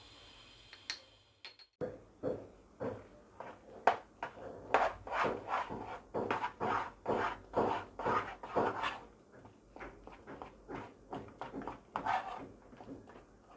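Wooden spoon stirring thick mashed potatoes with milk in a saucepan, scraping in repeated strokes about two a second, louder for the first several seconds and softer towards the end. A couple of light clicks come about a second in.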